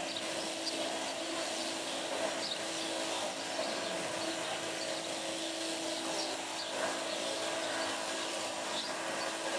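Powered sheep-shearing handpiece with a snow comb running steadily, a constant mechanical hum, as it clips the wool off a ewe.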